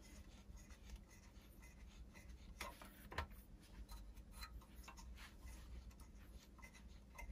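Faint rubbing and small ticks as the steel telescope tripod's centre fitting is hand-tightened under the head, with two sharper clicks about three seconds in.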